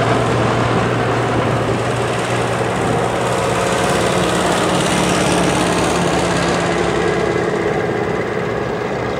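Small grey vintage tractor's engine running steadily as it drives past at road speed, easing off a little near the end as it moves away.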